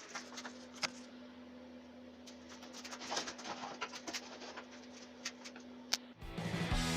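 Small clicks and taps of metal parts being handled and fitted together while the lathe's variator pulley is assembled, over a faint steady hum. Music begins about six seconds in.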